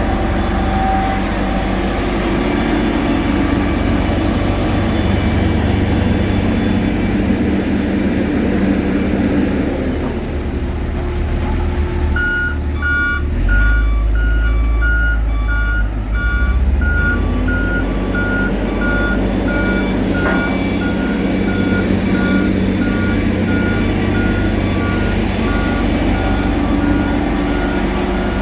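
Heavy diesel engines of road-paving machinery running steadily. About twelve seconds in, a reversing alarm starts beeping regularly, about two beeps a second, and keeps on.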